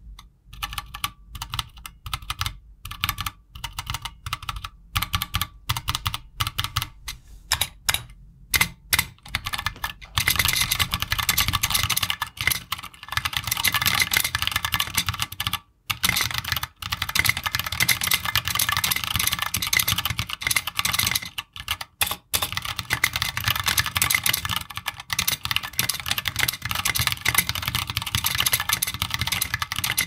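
Custom 60% mechanical keyboard with Kailh Burnt Orange switches and double-shot ABS SA keycaps being typed on: slow, separate keystrokes for about ten seconds, then fast continuous typing.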